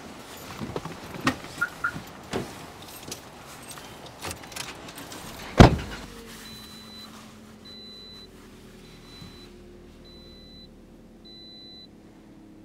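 Someone settling into a car seat with rustling and a few knocks, then the car door slamming shut about halfway through, the loudest sound. The car's warning chime then beeps five times, a little over a second apart, over a faint low steady hum.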